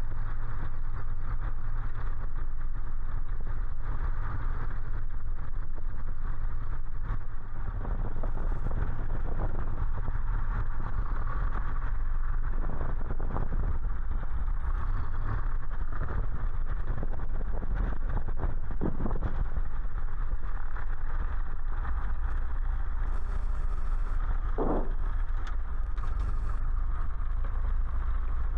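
Cessna 140 light aircraft's engine and propeller running steadily, heard as an even drone from inside the cockpit.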